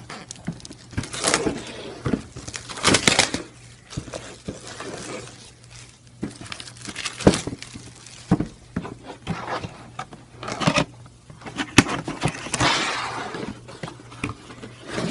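Plastic shrink wrap being crinkled and torn off a cardboard box, then the box being opened, with irregular rustles, crackles and sharp clicks of handling.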